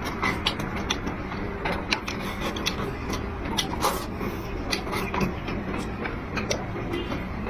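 Close-miked eating sounds: irregular wet clicks and smacks of chewing, several a second, over a steady background noise.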